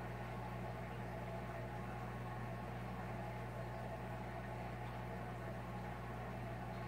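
Aquarium filter and air pump running: a steady electrical hum with an even wash of bubbling water.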